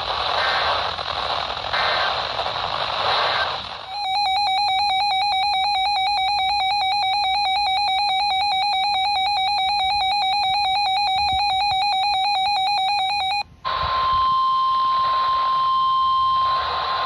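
NOAA Weather Radio alert coming in through heavy static, with short bursts of the alert's data header in the hiss. At about four seconds a weather radio's built-in electronic alarm sounds, a fast warbling tone lasting about nine seconds that cuts off suddenly. After a brief drop the static returns and the steady 1050 Hz NWR warning tone begins.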